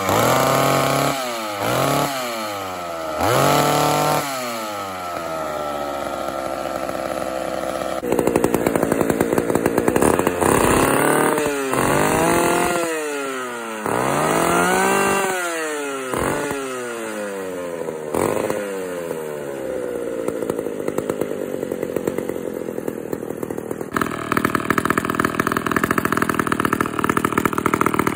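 Old two-stroke chainsaws run one after another. The first is revved in sharp throttle blips and settles back to idle. About eight seconds in, a second saw is blipped the same way, and for the last few seconds a Homelite Wiz 55 runs steadily.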